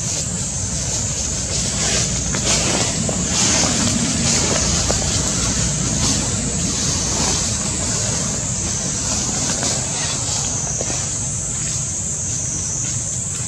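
Steady outdoor background noise: a low rumble with a continuous high-pitched hiss over it.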